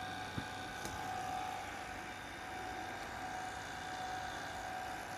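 Vintage Toshiba GV-201C open-reel colour video tape recorder running in playback: a steady mechanical whir and hum with a constant faint whine. There is one small click about half a second in.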